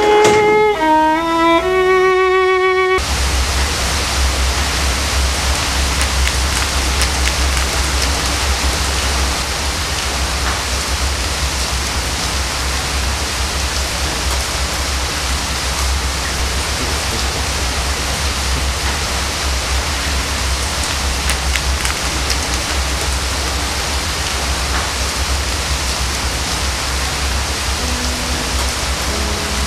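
Steady rain falling, a loud even hiss with a low rumble and scattered faint drop ticks, starting suddenly about three seconds in as a violin melody cuts off. Soft musical notes come back in near the end.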